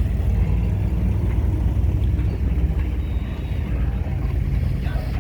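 A car engine running at idle close by, a steady low rumble.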